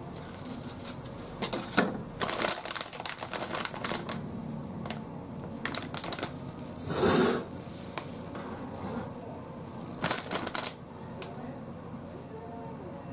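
Irregular light clicks and clatter of kitchen items being handled on a steel counter, in bursts near the start and again about ten seconds in, with one short rustling swish about seven seconds in.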